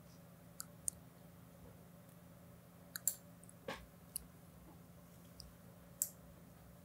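Faint mouth clicks from a vocal recording, being auditioned through a de-clicker set around 4.2: about eight sharp, short clicks at irregular intervals. A low steady hum lies beneath.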